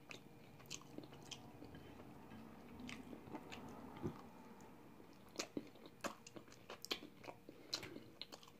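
A person eating crispy fried chicken: faint chewing with scattered small crunches and clicks, a few louder ones in the second half.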